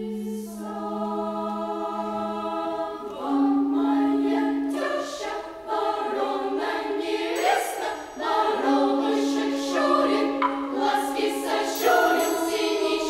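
Children's choir singing Russian folk words in sustained chords that shift every few seconds.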